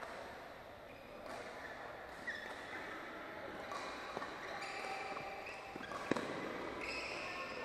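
Badminton rally: sharp racket strikes on the shuttlecock, five or so, the loudest about six seconds in, with short squeaks of shoes on the court floor between them.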